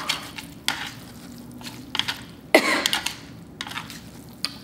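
A single cough about two and a half seconds in, set off by the fumes of the hot chili sauce. Around it are light clicks and wet squishing from chopsticks mixing saucy noodles on a metal platter.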